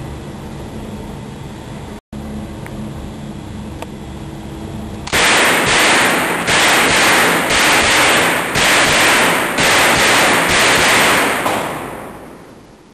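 Pistol-calibre submachine gun firing a rapid string of shots in an indoor range, starting about five seconds in. The fire comes as several quick strings with short pauses between them, loud enough to overload the microphone, and fades out near the end.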